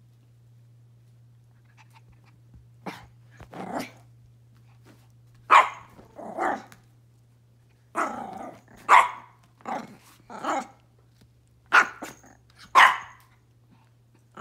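Pomeranian puppies yapping in a string of short, high barks, starting about three seconds in, as they squabble over rawhide chew sticks.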